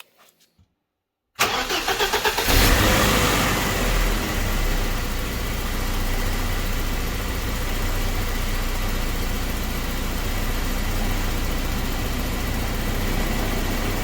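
BMW E30 318is's M42 1.8-litre four-cylinder engine cold-started on its rebuilt ignition coil pack: after a moment of silence the starter cranks for about a second, the engine catches with a brief rise in revs, then settles into a steady idle.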